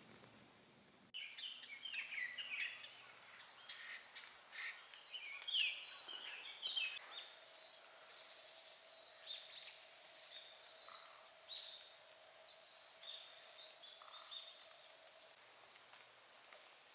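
Wild birds singing and calling: a dense run of short, high chirps and trills from several birds, starting abruptly about a second in. A faint steady low tone sits beneath them through the middle.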